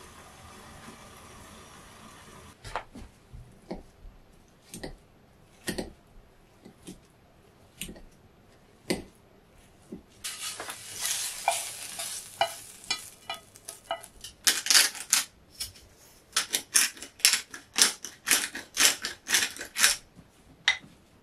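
Kitchen utensils knocking and scraping against cookware as food is stirred, with scattered knocks at first. From about the middle there is a short hiss, then a run of quick, loud strokes about two a second.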